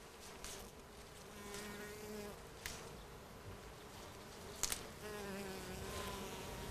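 Flying insects buzzing close by, the buzz swelling and wavering twice, about a second and a half in and again at about five seconds, with two small sharp clicks in between.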